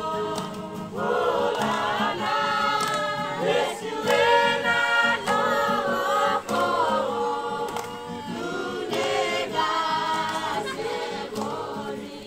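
A group of men and women singing a song together in several voices, with acoustic guitar accompaniment.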